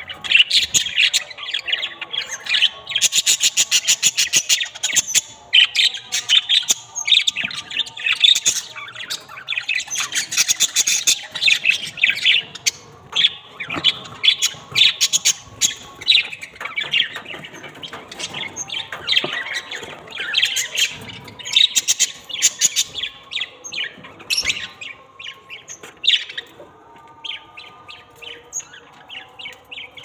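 Indian ringneck parakeets giving harsh, rapid chattering squawks in long runs of short calls, sparser in the last few seconds.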